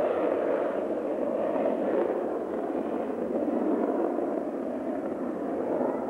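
Jet airliner's engines on the runway: a steady, loud rushing roar with no clear rise or fall.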